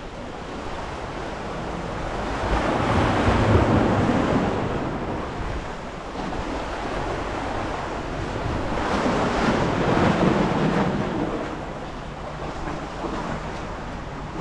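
Sea waves washing onto a rocky shore, the surge swelling and falling away twice.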